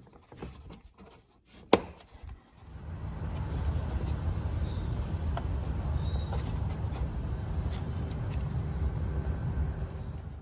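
Plastic cap being fitted onto a coolant overflow tank: faint handling clicks, then one sharp click about two seconds in. A steady low rumble then sets in and stops just before the end.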